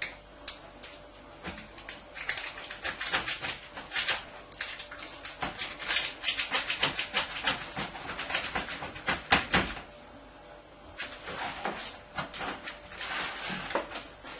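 Knife cutting into a freshly baked onion-and-leek tart with a pizza-dough crust in a metal baking tray: a quick run of crunching clicks and scrapes as the blade saws through the crust, with one louder knock about nine and a half seconds in.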